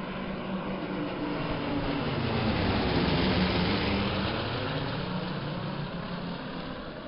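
Propeller aircraft engine passing by, growing louder to a peak about halfway through and then fading away.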